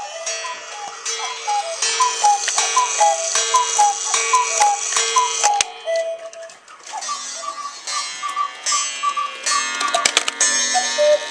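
Several mechanical cuckoo clocks calling the hour together: overlapping two-note falling "cuck-oo" calls from their bellows-and-pipe mechanisms, repeated many times over the ticking of the movements. There is a brief lull about six seconds in before the calls carry on.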